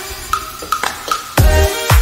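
Background electronic dance music: a sparse beat with short high notes, then deep, heavy bass-drum hits coming in about two-thirds of the way through.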